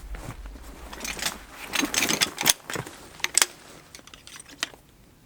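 Handling noises: rustling and a string of sharp clicks and light rattles, loudest from about two to three and a half seconds in, fading near the end.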